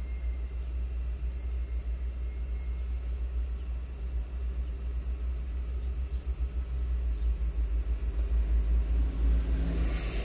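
Low steady rumble of a car waiting in city traffic, heard from inside the cabin, with a brief hiss near the end.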